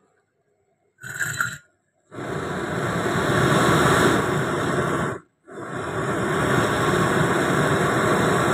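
Zeppelin 768 kompor mawar, a high-pressure LPG rose burner, burning with a steady loud rush of gas and flame from about two seconds in, broken off briefly a little after five seconds. A short burst of noise comes about a second in.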